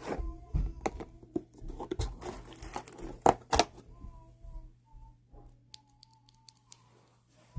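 Cardboard advent-calendar packaging being torn open, with crinkling and sharp clicks, the loudest a little over three seconds in. After about four seconds it goes quieter, with a few faint tones.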